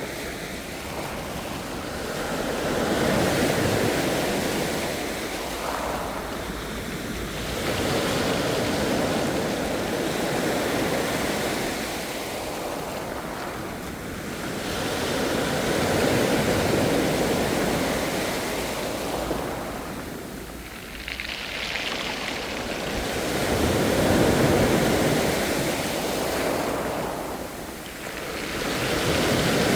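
Ocean surf: waves breaking and washing in, the rush of water swelling and falling back about five times, roughly every six seconds.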